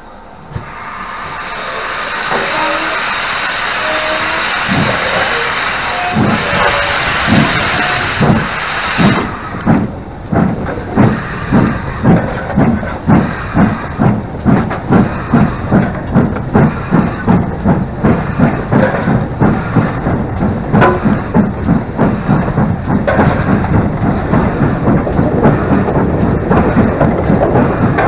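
GWR King class 4-6-0 steam locomotive 6023 'King Edward II' starting away. A loud hiss of steam builds up and then cuts off suddenly about nine seconds in, and regular exhaust beats come quicker and quicker as the engine gathers speed.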